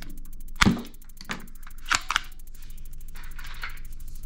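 Hard plastic toy guns clicking and knocking against each other as they are picked up and handled in a cardboard box. A sharp knock about half a second in is the loudest, followed by a few lighter clicks.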